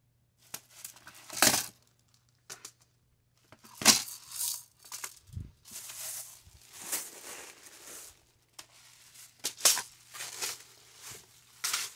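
Clear plastic bags of beads crinkling and rustling as they are handled, in irregular bursts with a few sharper crackles, the loudest about one and a half and four seconds in.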